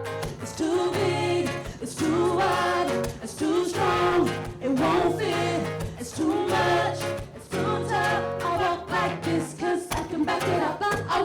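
Live vocal group singing a song over a guitar accompaniment and a steady bass line.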